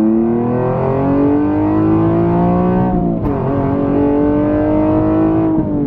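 Nissan 370Z's 3.7-litre V6 accelerating hard through a Motordyne Shockwave exhaust, heard from inside the cabin. The engine note climbs, drops at an upshift about three seconds in, climbs again and drops at another upshift near the end.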